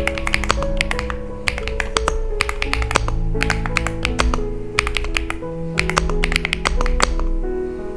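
Typing on an Epomaker X Feker Galaxy80 mechanical keyboard: quick, irregular runs of key clicks over background music with held notes.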